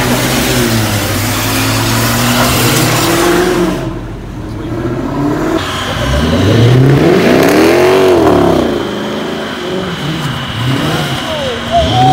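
Car engines revving hard, the pitch rising and falling in repeated sweeps as cars spin their wheels on wet pavement, with a steady hiss in the first few seconds and a steady high whine through the second half.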